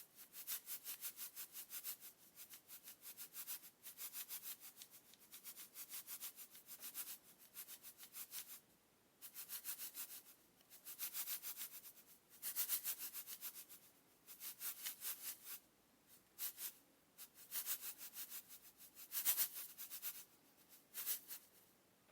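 Salt grains in a series of short bursts of rapid, fine, grainy rattling, each lasting a second or two, with brief pauses between.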